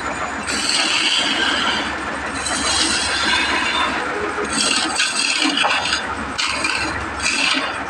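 Wood lathe spinning a wooden spindle while a hand-held turning chisel cuts grooves into it. The scraping hiss of the tool on the wood comes and goes in several short cutting passes over the lathe's steady low hum.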